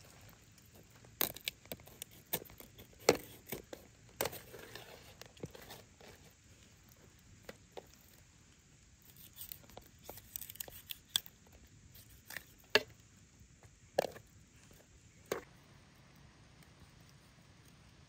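Kitchen knife cutting up a raw whole chicken on a steel tray: irregular wet cutting and tearing through skin and joints, with scattered sharp clicks and knocks, the loudest about three seconds in and again twice around twelve to fourteen seconds. The last few seconds are quieter.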